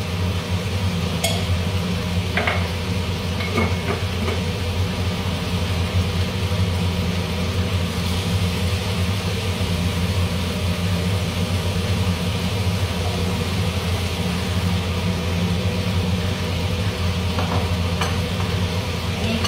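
Steady low hum of a kitchen range-hood fan running over a pot of chicken cooking on the stove, with a few light clinks of utensils in the first few seconds.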